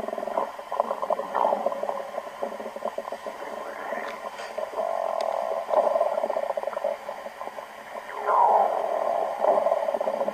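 A person's stomach growling: irregular gurgling rumbles with many small rapid crackles, swelling into longer drawn-out growls about five seconds in and again near the end.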